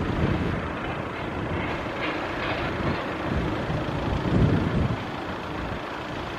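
Steady road traffic rumble, with one vehicle swelling louder about four and a half seconds in.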